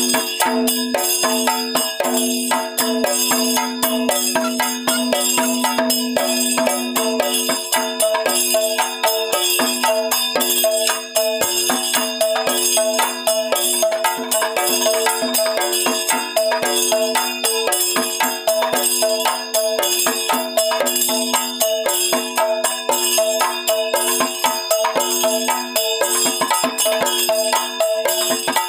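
Continuous ritual music with fast, even percussion strikes over steady ringing metallic tones, with no break.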